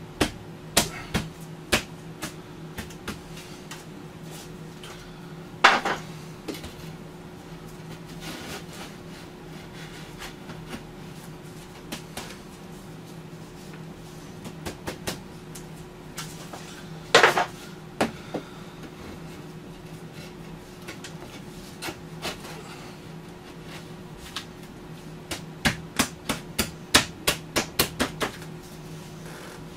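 Two short hissing squirts of expanding spray foam from an aerosol can, with many light taps and clicks between them as the foam is worked into the gaps around a window ledge. The taps come faster, about three or four a second, near the end. A steady low hum runs underneath.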